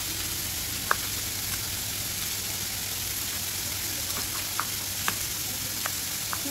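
Steady sizzling hiss, like food frying in oil, with a dozen or so light ticks of a knife cutting green chillies against a plastic chopping board; the clearest tick comes about a second in.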